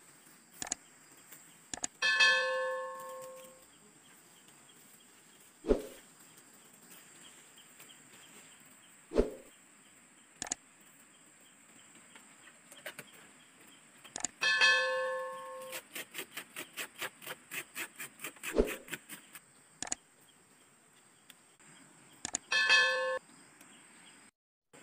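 A bell-like chime rings three times, each time the same short ringing tone, several seconds apart: the ding sound effect of an animated subscribe-button overlay. Between the chimes come a few dull single knocks and a quick run of clicks at about five a second.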